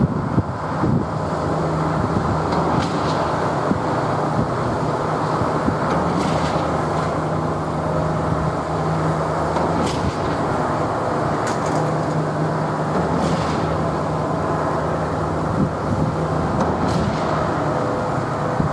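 Steady low diesel engine hum from heavy vehicles over outdoor traffic noise, with a few faint ticks.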